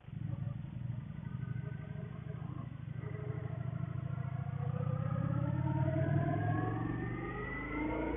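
Motorcycle engine under way, its pitch climbing steadily through the second half as the bike accelerates.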